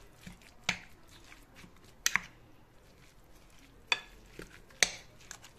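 Metal fork clinking against a ceramic bowl while mixing raw minced-meat filling with chopped onion and peppers: four sharp clinks at uneven intervals, otherwise fairly quiet.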